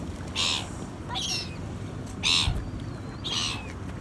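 A bird calling: four short, harsh, high-pitched calls about a second apart, some ending in a short falling whistle.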